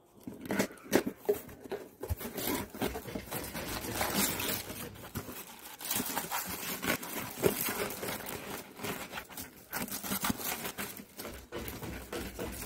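Cardboard parcel box being torn open and paper honeycomb packing wrap crinkling and rustling as the products inside are handled, a steady run of crackles and scrapes.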